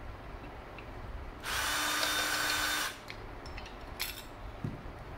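Ryobi cordless drill/driver running steadily for about a second and a half, backing out a bolt on a Predator carburetor's back cover, followed by a few light clicks.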